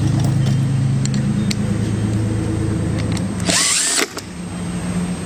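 Cordless drill driving a screw into a metal roof shingle: one short, loud whine, rising as it spins up, about three and a half seconds in, stopping sharply after half a second. A steady low hum runs under it.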